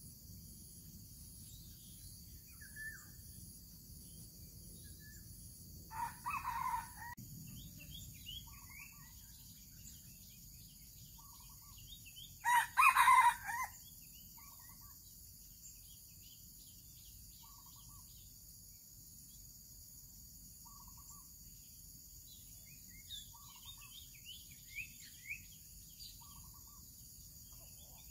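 Red junglefowl rooster crowing twice, short crows about 6 s and 12.5 s in, the second much louder. Small birds chirp, a short call repeats every couple of seconds, and insects buzz steadily.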